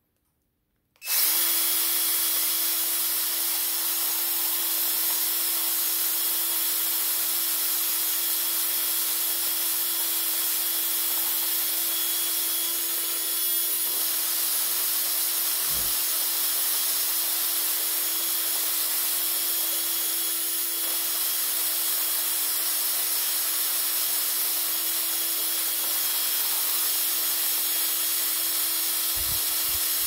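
Cordless drill at slow speed turning a Hario Skerton Pro ceramic burr coffee grinder, grinding beans. It starts about a second in and runs steadily, a constant motor hum over the grinding hiss.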